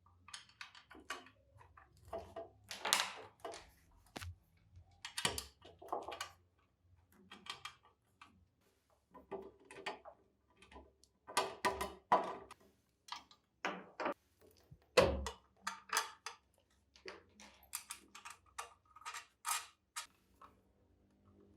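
Irregular clinks, knocks and short scrapes of hand tools and metal parts being handled at a workbench, with the loudest knock about fifteen seconds in.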